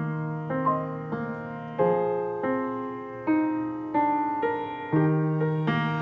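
Background piano music: a slow melody of single struck notes, each fading after it sounds, over held low notes.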